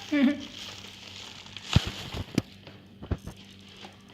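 Cardboard box being handled and worked open: light rustling with a few sharp knocks and taps, the loudest about two seconds in.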